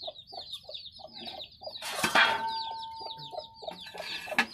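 Chickens clucking, with rapid high chirping all through. About two seconds in, a steel plate or vessel clanks and rings on for over a second, and another clank comes near the end.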